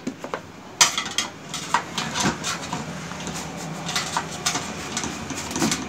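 A screwdriver levering a push-fit control knob off a stainless-steel gas stove panel: metal scraping and clicking against the steel and the knob. The run of sharp clicks and scrapes starts about a second in.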